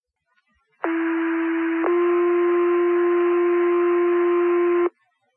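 Two-tone sequential fire page heard over a radio receiver: a steady tone of about a second goes straight into a slightly different tone held about three seconds, then cuts off. This is the alert tone that sets off the volunteer firefighters' pagers before the dispatch message.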